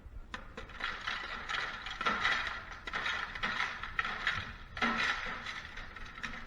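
Hand tool working a stubborn screw out of an aluminium light-fixture casing: irregular metallic clicking and scraping in several spurts.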